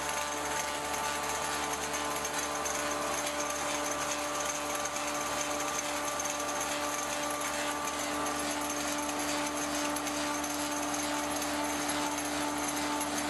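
1885 Ober copying lathe running steadily: a constant mechanical whine with several steady tones over the rattle of its belt-and-gear drive.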